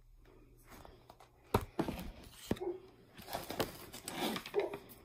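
A picture book being handled and its page turned: paper rustling, with two sharp knocks about one and a half and two and a half seconds in.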